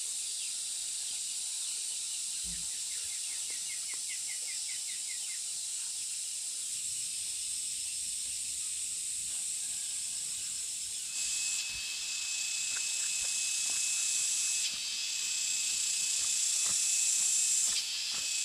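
Insects buzzing in a steady high-pitched drone, in the way cicadas do. It swells louder over the second half and drops away briefly twice, and a steady higher whine joins partway through. Twice in the first few seconds there is a quick rattling trill of short ticks.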